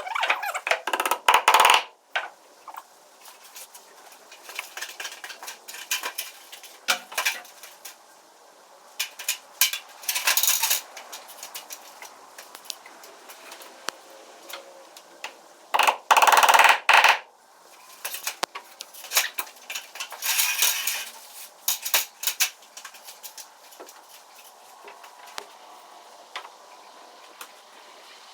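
Irregular knocks, clicks and clatter of hands-on plumbing work, blue PEX water line being fished through the wall framing, with louder scraping bursts of a second or so near the start and about ten, sixteen and twenty seconds in.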